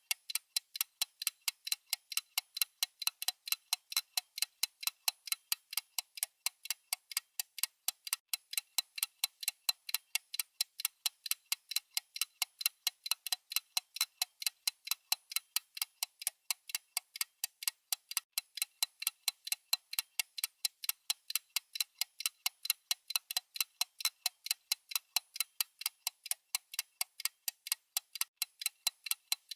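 Countdown timer's ticking sound effect: an unbroken run of sharp, even, high-pitched ticks, several a second.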